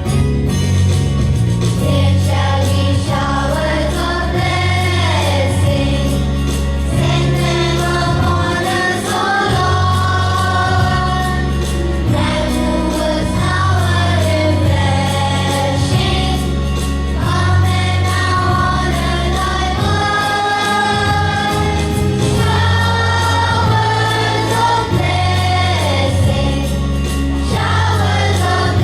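A song of group singing over an instrumental backing with a steady, repeating bass line, in the manner of a Christian or gospel song.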